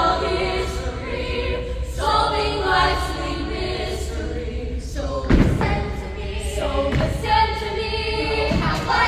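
A youth vocal ensemble singing together through stage microphones, several voices at once. A heavy thump comes a little past the middle, with a lighter one about two seconds later.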